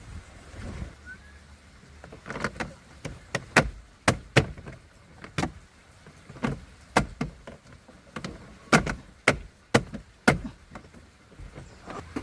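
A string of sharp, irregular knocks and taps, more than a dozen, some in quick pairs, starting about two seconds in and stopping shortly before the end.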